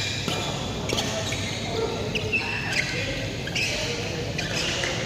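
Badminton doubles rally: several racket strikes on the shuttlecock, with short squeaks of shoes on the court floor in between.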